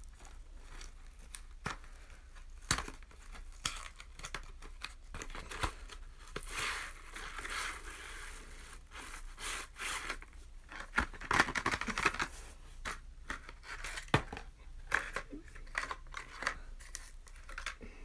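Cardboard sparkler box being opened and its clear plastic sleeve crinkling and tearing as the sparklers are pulled out, with scattered clicks and taps of handling. The crinkling comes in bursts, loudest about a third of the way in and again past the middle.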